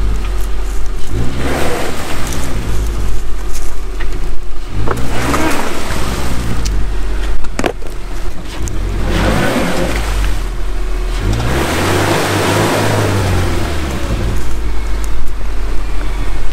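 Subaru Forester's flat-four engine revving up and dropping back several times as the stuck car's wheels spin in a muddy rut, with a sharp knock about seven and a half seconds in.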